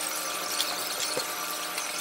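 Restaurant background noise: a steady hum and hiss with faint scattered clinks, and a soft knock about a second in.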